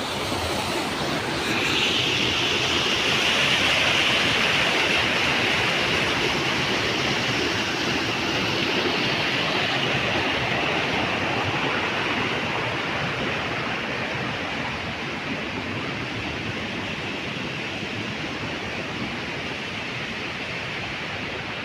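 A waterfall rushing steadily, a dense wash of falling water. A brighter hiss comes up about two seconds in and slowly eases off.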